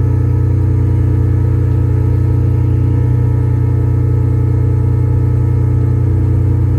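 Engine running steadily at a constant speed, a deep even drone with no revving.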